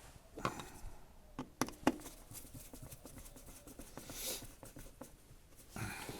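Faint bench-work handling noise from the chain hoist pendant controller and tools: a few sharp clicks and taps in the first two seconds, a brief hiss about four seconds in, and rustling near the end.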